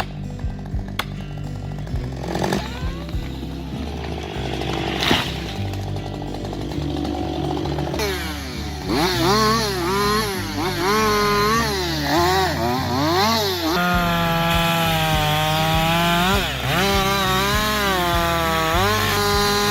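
Chainsaw engine revving up and down repeatedly, starting about eight seconds in, over background music.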